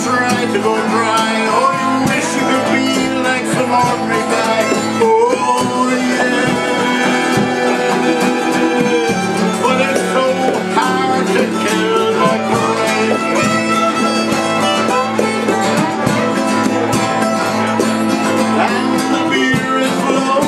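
Fiddle, mandolin and acoustic guitar playing together live, an instrumental passage of a folk song with the fiddle bowing the melody over the strummed guitar and mandolin.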